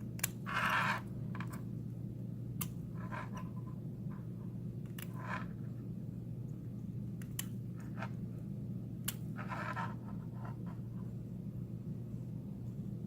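Small scissors snipping braided metal cable shielding, several sharp clicks a couple of seconds apart, with short scratchy rustles of the cable being handled, over a steady low hum.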